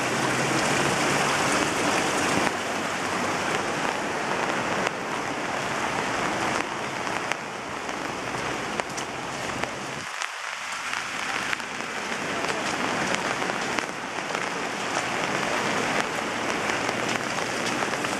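Floodwater rushing and splashing in a steady roar of water, where an overflowing canal can no longer pass through a narrower pipe and spills across the yard. There is a brief dip in the low rumble about ten seconds in.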